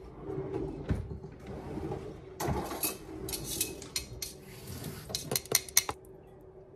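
Kitchenware clatter: metal tongs and a ceramic bowl knocking against a plastic food container as spaghetti is dished up. It comes as a run of irregular clinks and knocks, with the sharpest clicks just before the end.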